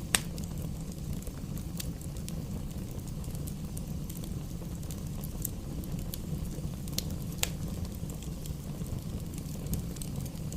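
Fire in a fireplace crackling over a steady low rumble, with scattered sharp pops. The loudest pop comes right at the start and another strong one about seven seconds in.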